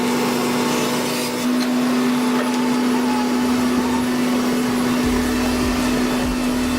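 Chainsaw engine running steadily at high speed, a constant whining tone over engine noise that steps up slightly about a second and a half in.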